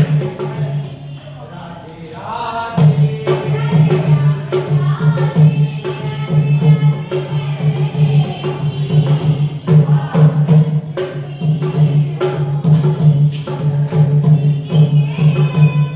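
Hindu devotional song (bhajan) with singing over rhythmic percussion and a steady low pulsing drone, easing off briefly about a second in before picking up again.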